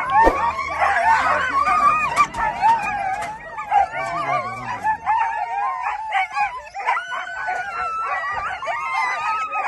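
Excited greyhound-type hunting dogs yelping and whining in a steady, overlapping chorus as the hare course is slipped. The chorus is loudest in the first couple of seconds.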